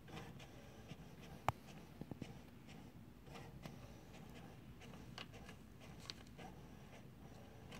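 Faint scratchy rustling of paper and a plastic bag as cats paw and nose at a printer, with scattered light clicks; the loudest is a single sharp click about a second and a half in.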